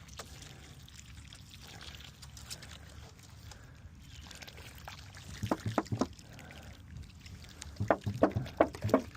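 Faint steady background noise, with three dull knocks about halfway through and a quicker run of four or five louder knocks near the end.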